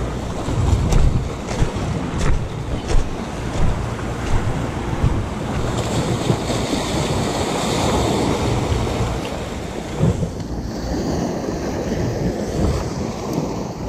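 Sea waves washing and breaking over a rocky, pebbly shore, with wind buffeting the microphone in gusts. A few light clicks sound in the first few seconds.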